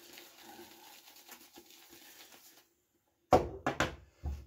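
Synthetic shaving brush swirled on a puck of shaving soap to load it, a faint scratchy crinkling that stops about two and a half seconds in. Near the end come a few loud knocks and thumps.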